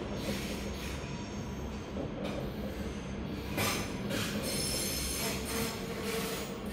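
Train wheels squealing and screeching on the curved tracks of a station throat as trains move slowly through, in short bursts about once a second over a steady low rumbling hum, with a thin high squeal around the middle.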